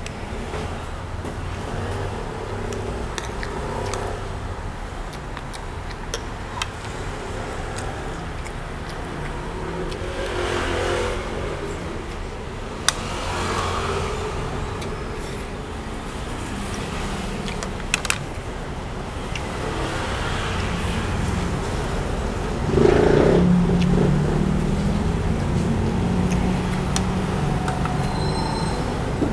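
A motor vehicle engine running nearby and shifting in pitch, growing louder about three quarters of the way through, with a few sharp clicks.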